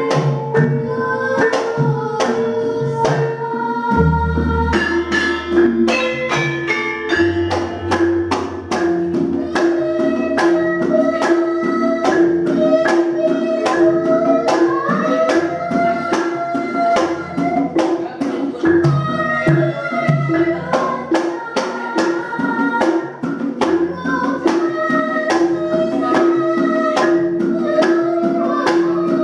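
Javanese gamelan playing a fast, steady accompaniment of struck bronze metallophones and gong-chimes with kendang drum, a deep gong stroke coming in about four seconds in and another a few seconds later. A girl sings a palaran tembang melody over it.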